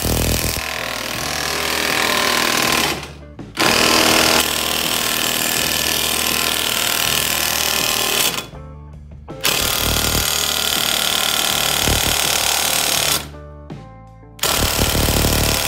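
Impact wrench hammering on a ball joint press in four runs of a few seconds each, with short pauses between, over background music.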